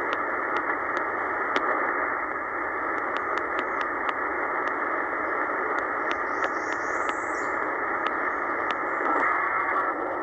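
Upper-sideband static hiss from a Tecsun PL-990x shortwave receiver's speaker, a narrow, telephone-like hiss with no clear station, while the tuning knob is stepped down through the 13 MHz band. Scattered clicks come from the tuning steps.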